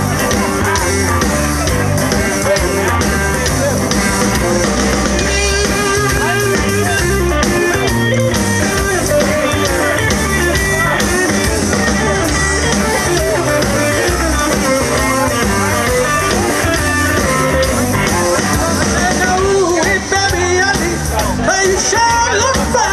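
Live blues band playing an instrumental passage: electric guitar over electric bass and a drum kit, amplified through stage speakers.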